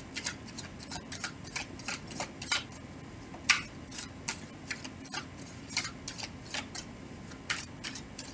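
A deck of tarot cards being shuffled by hand, overhand: a stream of light clicks, about two or three a second, as the cards are pulled off and dropped onto the deck.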